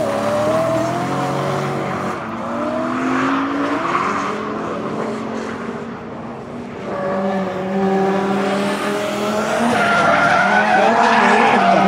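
BMW E92 M3's V8 revving up and down as the car drifts, with tyres skidding and squealing in wheelspin. The engine note eases a little around the middle, then climbs and holds high near the end.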